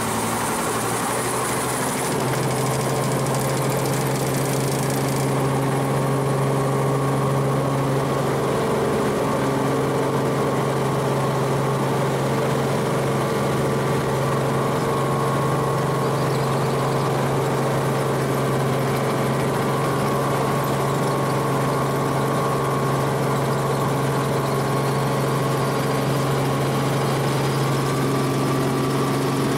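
Helicopter engine and rotor running steadily: a continuous hum with several held tones, growing slightly louder about two seconds in.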